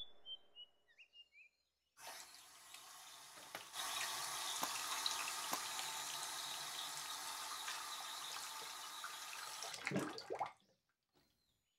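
Water running from a tap and splashing over a man's head and face held under it. It starts about two seconds in, grows louder a couple of seconds later, and cuts off abruptly after a short louder swish near the end.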